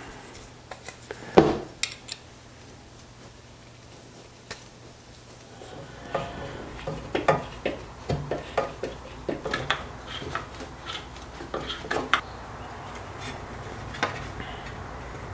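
Hand tools and small metal hardware clicking and clinking against aluminium parts of an oil cooler door assembly on a workbench. There is one sharp knock about a second in, then from about six seconds on a run of irregular light taps and clinks.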